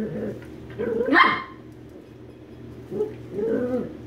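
Small dogs play-fighting, growling and barking in short bouts, with one loud, sharp bark about a second in.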